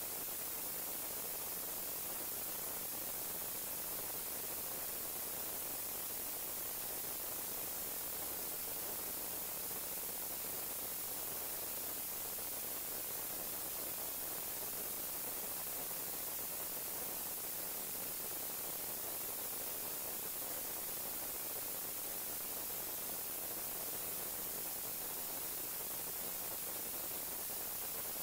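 Steady, even static hiss with no change in level and no distinct mechanical or motor sound.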